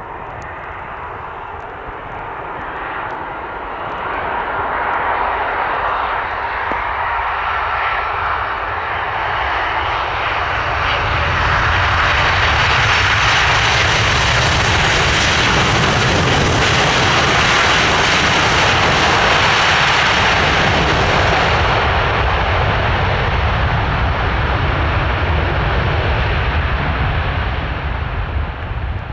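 Airbus A330-300 jet airliner landing. Its engine noise swells as it comes in and passes close along the runway, loudest past the middle. Then the hiss drops away, leaving a lower rumble as it rolls on down the runway.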